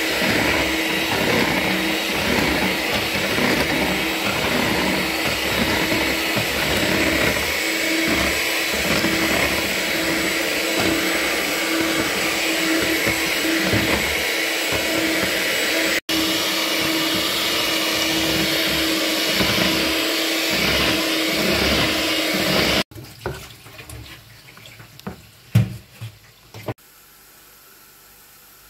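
Electric hand mixer running steadily, its beaters whisking thin pancake batter in a plastic bowl. It stops abruptly about 23 seconds in, followed by a few light knocks.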